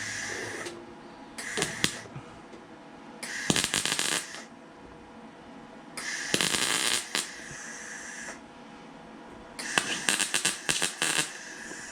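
Welder laying short tack welds on thin sheet steel, patching a fender's side marker hole: about six separate bursts of sharp crackling, each lasting from half a second to a second and a half, with short pauses between them.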